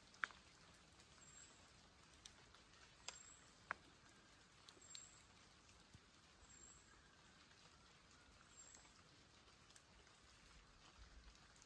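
Near silence with faint, scattered ticks of light rain dripping, a few louder drops among them. A faint high chirp repeats every couple of seconds.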